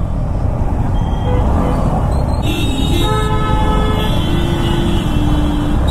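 Vehicle horns honking in heavy traffic, several of different pitches one after another from about a second in, the brightest around halfway, over a steady low rumble of engine and road noise.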